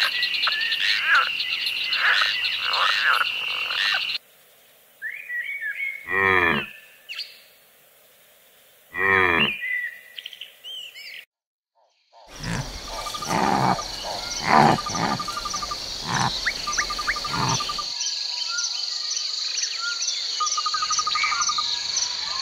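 Animal calls in turn. First a frog chorus croaking over a steady high insect trill. Then two long mooing calls about three seconds apart, each falling in pitch. Then a steady insect trill with short bird chirps.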